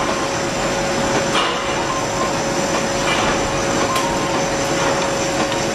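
Semi-automatic carton folder-gluer running, its conveyor belts and rollers making a continuous mechanical noise with a steady hum, and a few light clicks as corrugated blanks are fed in.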